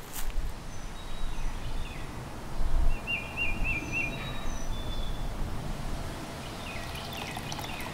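Outdoor woodland ambience: small birds chirp now and then, with a short rapid trill about three seconds in, over a steady low rumble.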